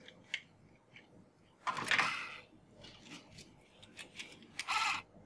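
Toys being handled over a cardboard box, a die-cast toy car set down and a plastic toy motorbike picked up: scattered small clicks and taps, with a half-second scrape about two seconds in and a shorter one near the end.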